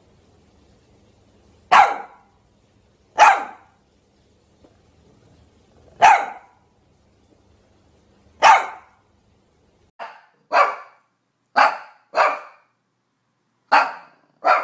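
Shih Tzu barking in about ten short, sharp single barks. The first few come a couple of seconds apart, and they quicken to about two a second from about ten seconds in.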